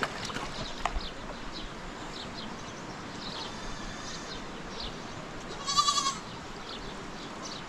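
Small livestock bleating: one short, wavering bleat about six seconds in, with a fainter call a couple of seconds earlier. Faint short chirps sit over a steady background hiss.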